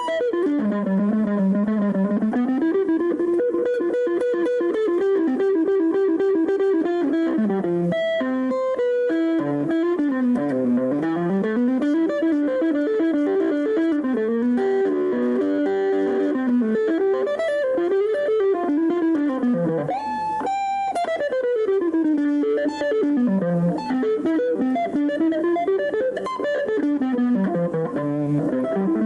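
Solo electric guitar playing fast, unbroken runs of notes that climb and fall in waves, with a quick upward sweep and drop about twenty seconds in.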